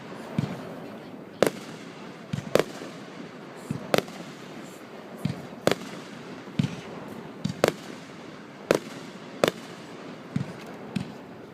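Fireworks display: a steady run of bangs, about one or two a second and some in quick pairs, some dull and low, others sharp and cracking.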